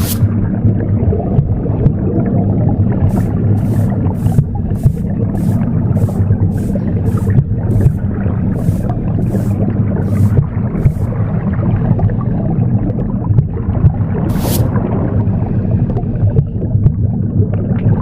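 Recorded womb sound, a steady low whooshing rumble, mixed with a broom sweeping. The broom's short swishes come about twice a second for several seconds from about three seconds in, with one more later.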